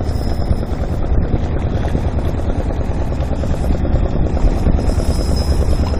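Wind buffeting the microphone: a loud, steady, fluttering rumble.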